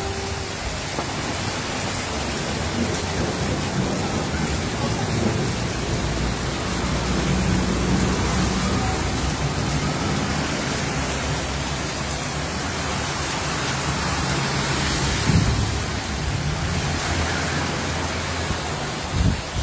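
Heavy rain falling steadily on a flooded street, with cars driving through the floodwater, their tyres throwing up spray, over a low rumble.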